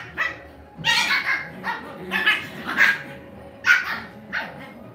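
Lhasa Apso dogs giving a quick string of short, high-pitched barks and yaps while wrestling in play.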